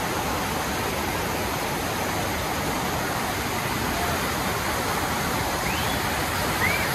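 Large waterfall: falling water making a steady, dense rushing noise.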